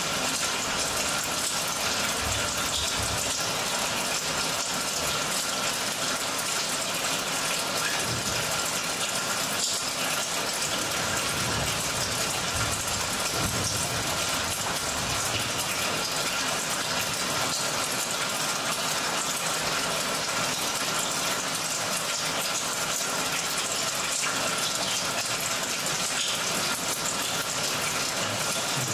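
Steady rushing, water-like noise, the sound played for a stage dance, with faint low thuds now and then.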